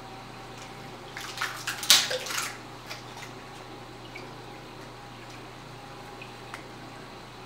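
Water splashing and trickling at the surface of a reef aquarium for about a second and a half, loudest about two seconds in, over a steady low hum.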